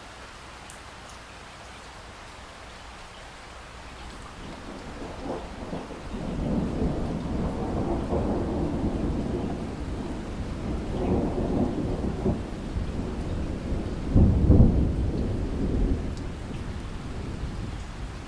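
Steady rain with a long roll of thunder: the rumble builds about four seconds in, swells to its loudest crack about two-thirds through, then dies away near the end.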